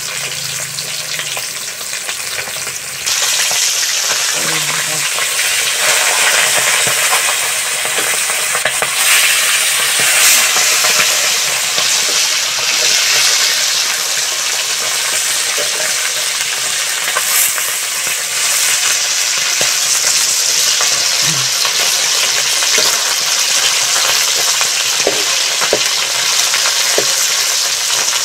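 Whole fish frying in hot oil in a metal wok: a steady sizzling hiss that gets louder about three seconds in. A metal spatula scrapes and clicks against the pan as the fish are turned.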